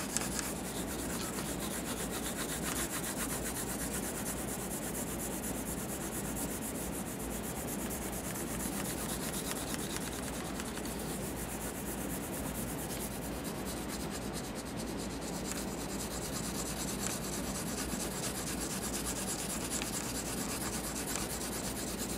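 Graphite pencil rubbing on drawing paper in rapid, continuous back-and-forth shading strokes.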